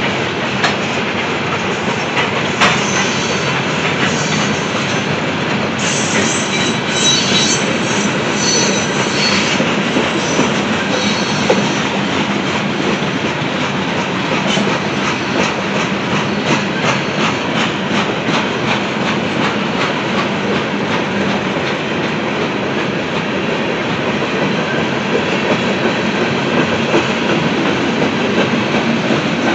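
Loaded coal hopper cars of a slow freight train rolling past: a steady rumble with repeated clacking of wheels over the rail joints. About six seconds in, a spell of high-pitched squealing from the wheels lasts some four seconds.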